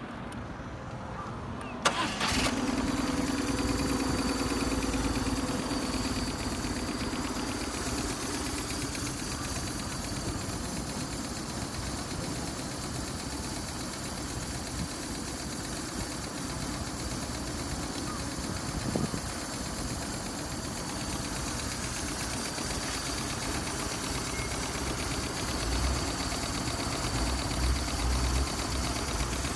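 BMW GS motorcycle's boxer twin engine started: a brief starter crank about two seconds in, it catches, runs at a raised idle for a few seconds, then settles into a steady idle.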